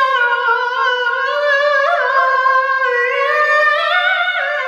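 A man singing one long, high, drawn-out note, its pitch wavering and sliding up and down.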